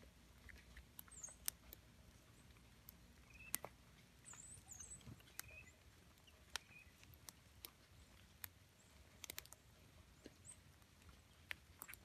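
Quiet woodland with scattered sharp ticks and taps, and a few brief, high chip calls from small songbirds, about three clusters of them.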